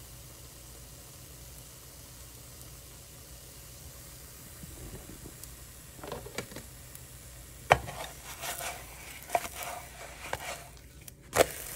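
Spinach wrap batter cooking in an oiled frying pan with a faint steady sizzle. In the second half come a few sharp knocks, the loudest about eight seconds in.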